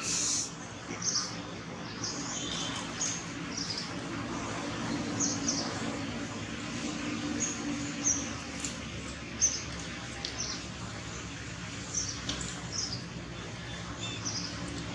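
Small birds chirping: short high-pitched chirps, roughly one every second, over a steady low background hum.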